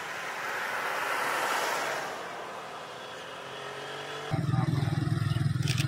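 Road traffic: a vehicle passes, its tyre and engine noise swelling and then fading over the first couple of seconds. About four seconds in, a louder, low engine drone starts abruptly close by.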